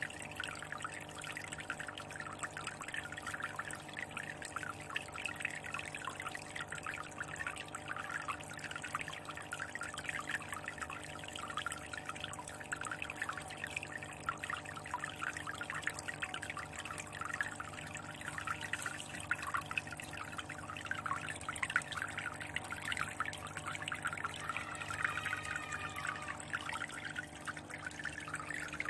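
Water trickling and splashing into a fish tank, a dense steady patter of small drops and bubbles, with a steady low hum underneath.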